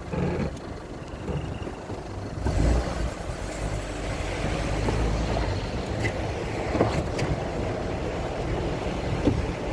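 Motor vehicle driving on an off-road track: a steady engine and road rumble that grows louder about two and a half seconds in, with a few sharp knocks.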